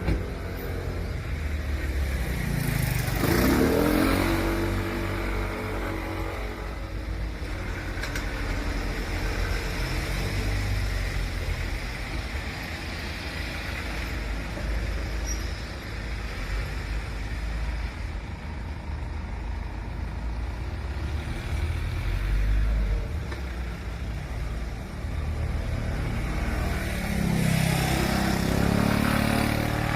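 Road traffic: a steady low rumble of engines, with a vehicle passing close about three seconds in and another near the end.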